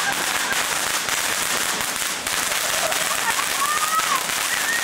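Ground fireworks fountain spraying sparks: a steady, dense crackling hiss with no single loud bang.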